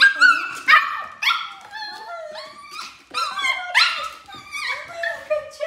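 A puppy barking in a quick run of short, high-pitched yips, many of them sliding down in pitch, ending in a longer falling whine.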